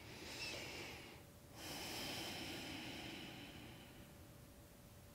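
A woman's slow, deep breath: an inhale of about a second, a brief pause, then a longer exhale that fades out.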